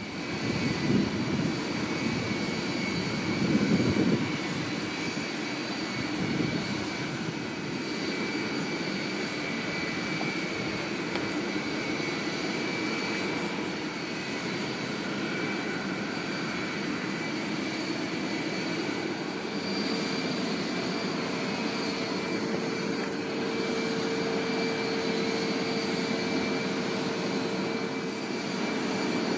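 Jet airliner engines running: a steady rush with high whining tones. A lower hum joins about two-thirds of the way through.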